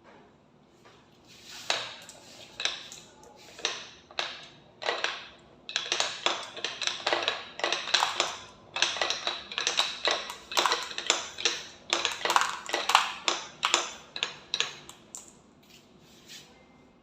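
Glass marbles clicking and clattering down a plastic marble run track, each hit ringing briefly. A few scattered clicks at first, then a long dense rattle of many hits that thins out near the end.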